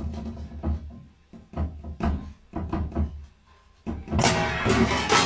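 Hand knocking and thumping irregularly on a plastic wall access hatch, hollow knocks a fraction of a second apart. From about four seconds in, a louder, noisy rattling and scuffling takes over.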